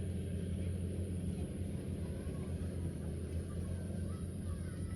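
Steady low mechanical drone, with faint short high chirps over it.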